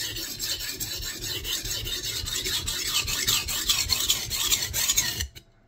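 Nitro-V steel gyuto knife blade stroked back and forth on a coarse 120-grit Shapton Kuromaku whetstone (aluminium oxide with a ceramic binder): a steady gritty rasp of steel grinding on stone as the first edge is raised. It stops suddenly about five seconds in.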